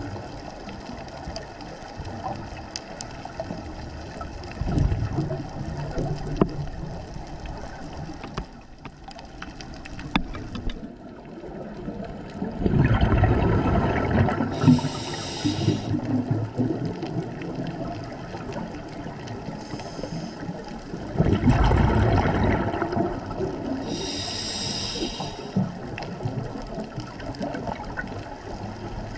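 Scuba diver breathing through a regulator underwater: a short high hiss on each inhalation and a loud rushing gurgle of exhaled bubbles, a few slow breaths several seconds apart.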